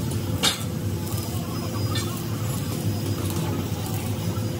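Steady low mechanical hum with a sharp knock about half a second in and a fainter knock about two seconds in.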